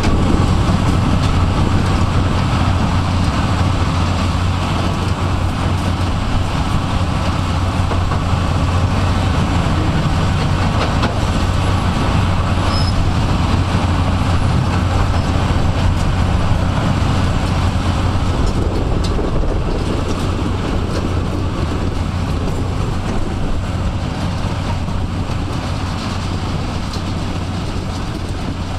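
Heavy diesel site machinery, a mobile crusher and tracked excavators, running steadily with a deep, constant hum that slowly fades near the end.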